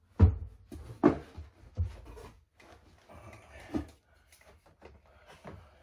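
Hammer blows nailing metal shower-pan netting to a shower curb: four sharp strikes at uneven spacing, the first two the loudest, with lighter knocks and rustling of the mesh between them.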